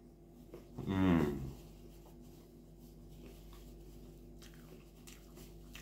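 A man gives one short hummed 'mmm' of enjoyment about a second in while eating fried chicken, followed by faint chewing and mouth clicks.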